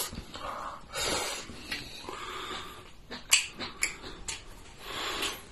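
A man slurping noodles from a bowl, twice, and chewing, with a few sharp clicks of chopsticks against the porcelain dishes in between.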